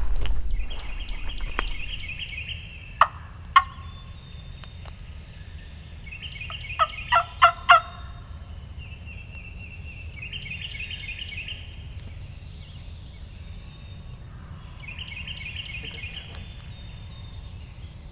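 Wild turkey gobblers gobbling, several birds answering one another, with about four rapid rattling gobbles spread through. Short sharp sounds are the loudest thing heard: two about three seconds in and a quick run of four near the middle.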